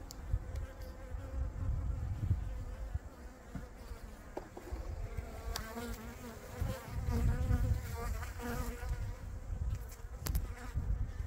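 Honeybees buzzing around an open hive with a steady hum, under a low rumble on the microphone and a few light clicks.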